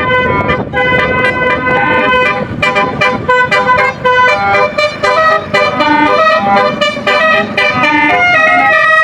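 Basuri telolet horn playing a tune in stepped, held notes.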